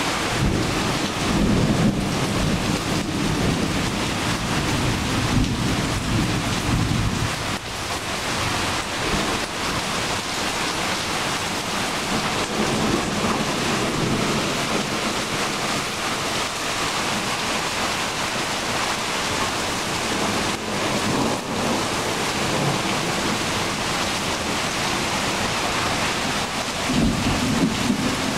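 Heavy rain pouring steadily, with a long low rumble of thunder over the first several seconds and another rumble starting near the end.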